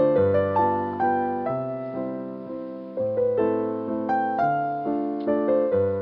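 Background piano music: a gentle melody of single notes over slow-changing bass notes, each note fading after it is struck.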